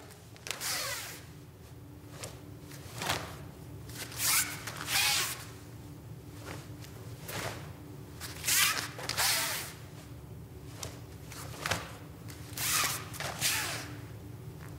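A karateka's sharp, hissing exhalations and the swish and snap of the cotton gi, timed with the punches and blocks of a kata: about a dozen short bursts, some in quick pairs. A low steady hum runs underneath.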